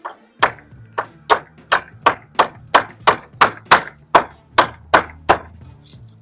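Hammer blows on wood, about fourteen evenly spaced strikes at a little over two a second, stopping about a second before the end.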